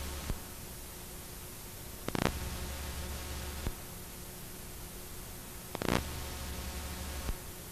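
Steady static hiss with a low hum that cuts in and out, broken by a short crackle about two seconds in and again near six seconds, with fainter clicks between.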